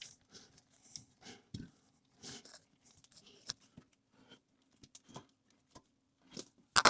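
Scattered short clicks and scrapes of nuts being tightened on a toilet's tank-to-bowl bolts, worked alternately side to side; a cluster of sharper clicks near the end.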